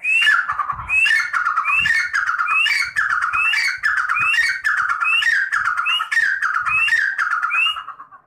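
Grey francolin (teetar, sold as 'red partridge') calling loudly: about ten repeated phrases, a little under one a second. Each phrase is a quick rising note followed by lower, falling notes. The calls stop just before the end.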